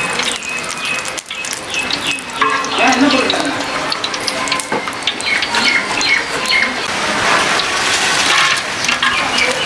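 Oil sizzling in a large aluminium biryani pot over a wood fire. Near the end, whole spices and bay leaves are dropped in and the hiss gets louder.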